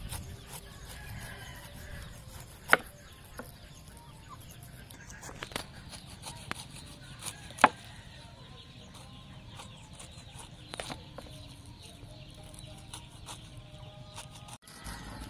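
Chickens clucking while a knife cuts through a pineapple, with two sharp knocks, about three seconds in and about eight seconds in, the loudest sounds.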